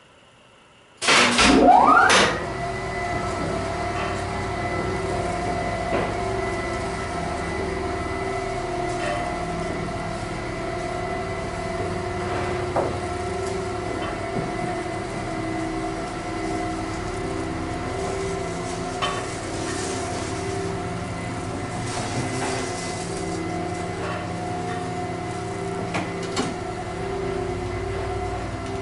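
Old freight elevator's geared traction machine starting with a loud clunk about a second in and a rising whine, then running steadily with a constant hum and whine and occasional clicks and rattles as the car travels between floors.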